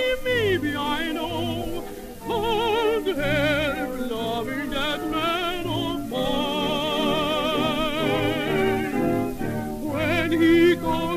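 Light-opera music from a 1930s 78 rpm record: orchestra with a strongly vibrato-laden melody line in short phrases, then a longer held passage near the middle.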